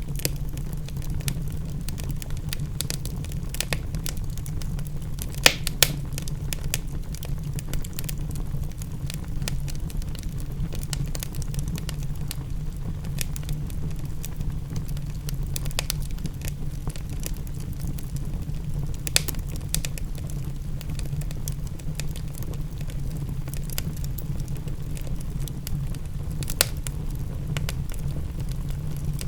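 Wood fire crackling in a fireplace, with a few louder sharp pops standing out, over a steady low rumble and the even hiss of rain.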